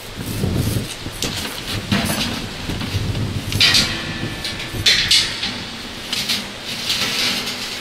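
Steel silo wall plates being bolted together: irregular metal clanking and knocking, with louder sharp hits about three and a half, five and seven seconds in.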